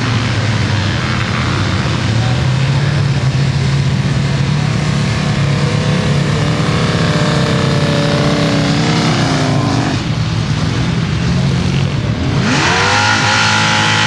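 Ford sand drag truck's engine running at low speed, its pitch sagging a little, then revving up and getting louder about twelve seconds in as the truck pulls away.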